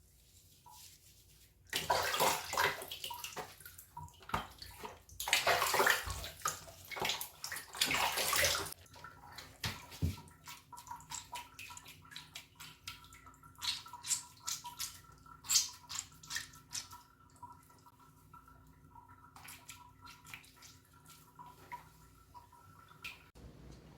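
Water running in two rushes of a few seconds each while a cat is bathed, then splashing and dripping over a faint steady hum.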